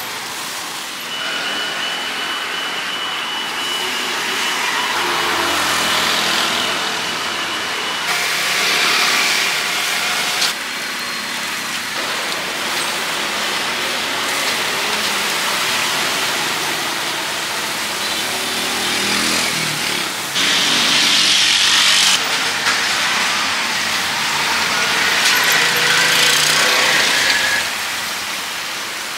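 Skewered stuffed frogs and chicken sizzling over a charcoal grill, a steady hiss, with street traffic behind it. The sound changes abruptly several times.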